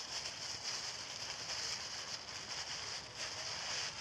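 Steady high-pitched hiss of outdoor background, with a few faint rustles and clicks.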